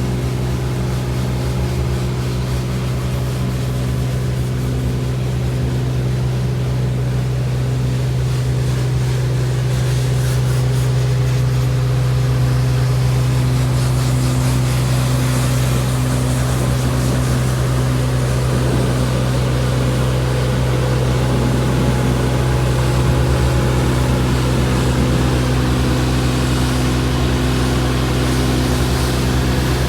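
Kubota KX016-4 mini excavator's three-cylinder diesel engine running steadily with a constant low hum, no revving.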